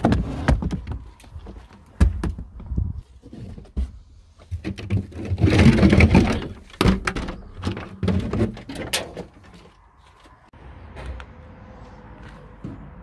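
Aluminium-edged flight cases being shifted and stacked on a van's carpeted floor: irregular hollow thunks and knocks, with a longer scrape about five to seven seconds in.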